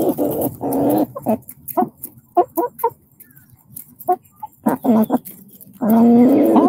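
Backyard hens making contented 'happy chicken sounds'. Their low, drawn-out trilling calls and short clucks are played back through a video call, with one long, loud call near the end.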